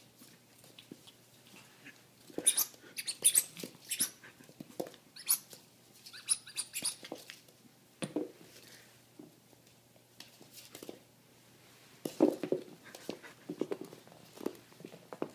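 American Eskimo puppy playing with a squeak toy: irregular short squeaks and play noises, thick for a few seconds about two seconds in, a lull past the middle, then more bursts near the end.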